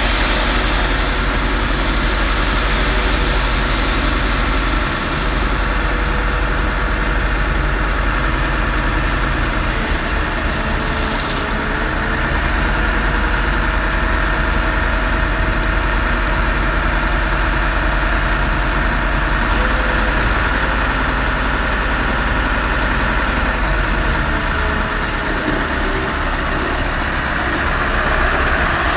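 Scania 164's V8 diesel engine running steadily at idle while the tipper body is worked, getting louder near the end as the truck pulls forward.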